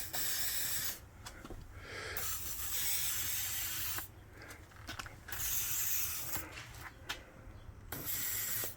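Aerosol can of WD-40 silicone lubricant sprayed in four hissing bursts of about one to two seconds each onto the rear hatch latch, with a few light clicks between the bursts.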